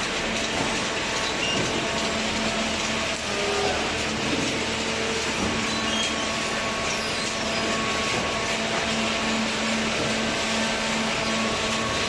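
Cardboard baling line running: the belt conveyor carrying loose cardboard up into the baler, with steady machine noise and a steady hum.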